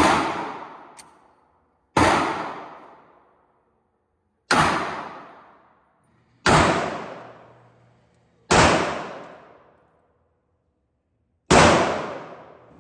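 Glock 37 .45 GAP pistol fired six times in slow, single shots about two seconds apart. Each shot is loud and sharp, and echoes away over about a second and a half.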